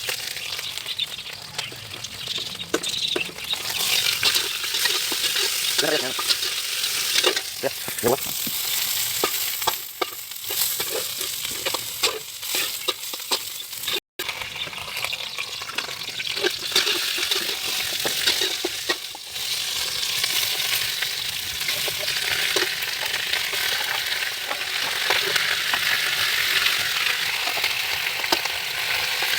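Food frying in hot oil in a pan: a continuous sizzle, with frequent clicks and scrapes of a utensil stirring against the pan. The sound cuts out for an instant about halfway.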